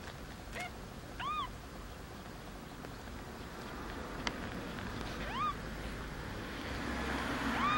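A three-day-old kitten mewing: three or four short, thin, high mews, each rising and then falling in pitch, spaced a few seconds apart. The last mew, near the end, is the loudest.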